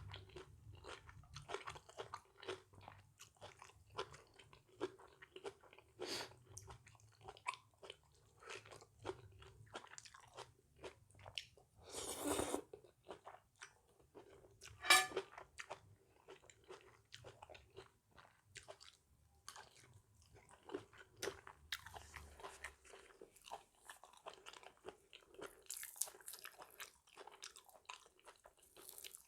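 A person chewing and crunching a mouthful of spicy Thai mixed-seafood salad close to the microphone, with many irregular small crunches and clicks. There is a short noisy burst about twelve seconds in and one sharp crack about three seconds later.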